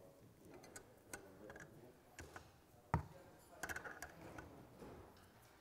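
Faint metal clicks and clinks of spanners working the bolts of a bearing splitter clamped on a moped crankshaft, with one louder metallic knock about three seconds in.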